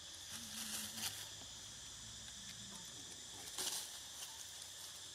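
Steady forest insect chorus, a continuous high chirring hum. A brief sharp noise comes about a second in and a louder one a little past the middle.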